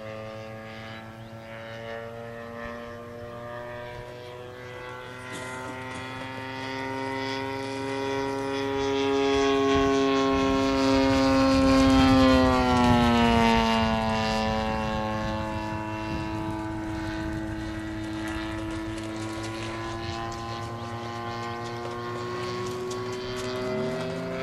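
Radio-controlled model warbird's propeller engine running in flight, growing louder and creeping up in pitch as it approaches. About halfway through it passes overhead and its pitch drops, then it drones on steadily at the lower pitch.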